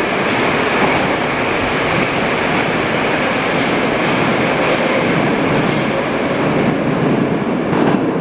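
Moscow metro 81-775/776/777 "Moskva-2020" train pulling out of the station and running off into the tunnel: a steady, loud rumble of wheels on rail and running gear.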